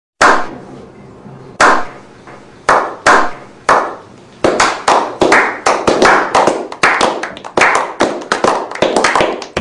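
A small group of people doing a slow clap: single sharp hand claps about a second apart that speed up after a few seconds into faster applause.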